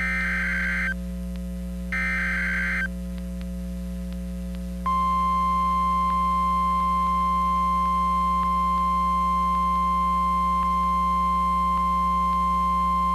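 Emergency Alert System tornado warning on NOAA Weather Radio: the last two of the three digital SAME header bursts, each about a second long with a second's gap between them, then after a pause the steady 1050 Hz weather radio warning alarm tone starting about five seconds in. A steady mains hum runs underneath.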